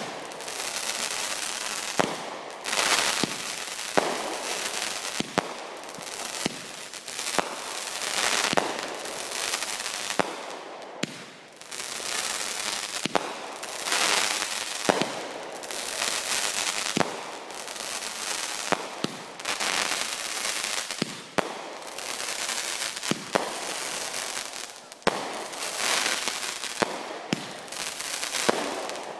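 Aerial fireworks firing shot after shot: sharp bangs every second or two, each followed by about a second of hissing spray as the shell rises or bursts.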